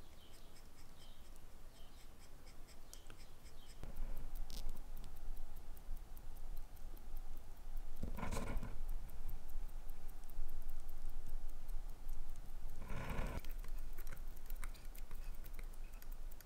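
Poljot 2409 hand-wound watch movement ticking quickly. Twice, at about eight and thirteen seconds in, a short press is heard as the hands are pushed down onto their posts with a hand-setting tool.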